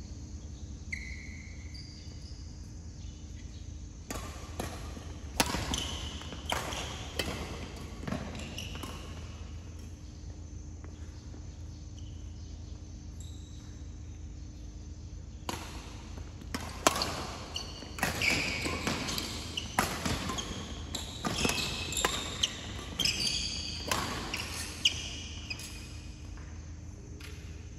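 Badminton play in a hall: sharp racket hits on the shuttlecock, with shoes squeaking and feet thudding on the court. It comes in two spells of play, from about four seconds in and again from about fifteen seconds, over a steady low hum.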